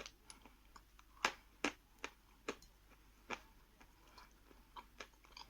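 Hard 'Khrustal' eating chalk being crunched between the teeth: a slow, uneven run of sharp, crisp crunches, a few louder ones about a second apart among fainter ones.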